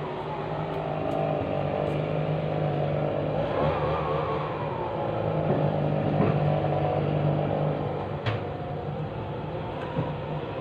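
Engine running with a steady low hum, its pitch rising and falling several times as it revs up and down.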